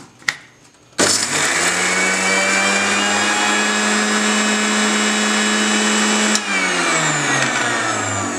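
A few clicks as the jar and lid are set in place. About a second in, an electric mixer grinder starts, its motor whine rising to speed, and runs steadily on a small batch of fresh leaves in the steel jar, too few for the blades to catch them well. About six seconds in it is switched off and the pitch falls as the motor spins down.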